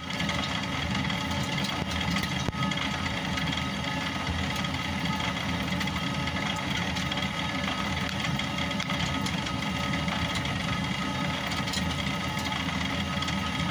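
Traditional watermill's millstone turning and grinding grain into flour: a steady low rumble with faint scattered ticking.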